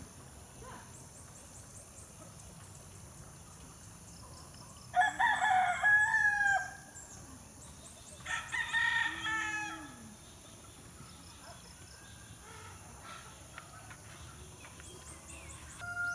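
A rooster crowing twice, one long call about five seconds in and a second about three seconds later.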